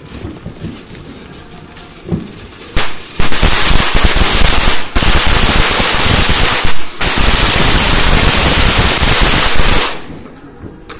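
A ground fountain firework going off: a loud, dense, continuous rush of noise from the spraying sparks that starts about three seconds in, briefly dips twice, and dies away near the end as it burns out.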